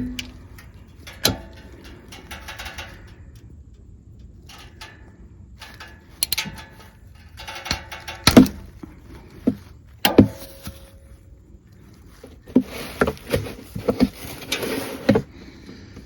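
Metal hand tools clinking and knocking as a socket wrench is worked on the Honda Pioneer 700's 17 mm drain plug. The sharp clicks come singly at first, then in a quick run near the end.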